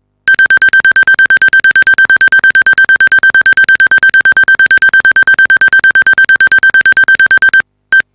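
Rapid run of short, identical electronic beeps, about eight a second, each a single high buzzy tone. The beeps stop about seven and a half seconds in, and one more lone beep follows just before the end.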